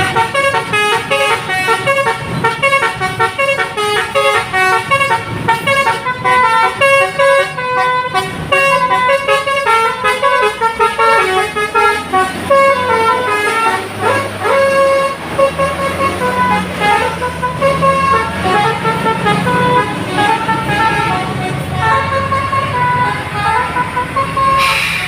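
Bus 'telolet' multi-tone musical horn playing a long tune of quick stepping notes, over the low running of the bus engine.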